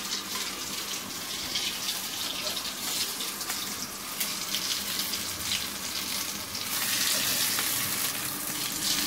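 Egg-coated shami kababs shallow-frying in a pan of hot oil: a steady sizzle with many fine crackles.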